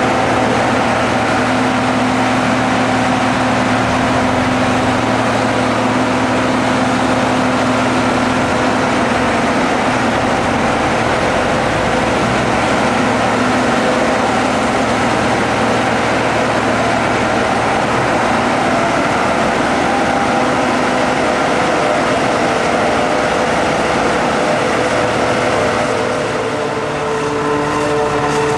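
John Deere 5200 self-propelled forage harvester chopping maize: its engine and chopper run steadily under load, with a tractor and tipper driving alongside. The sound shifts slightly near the end.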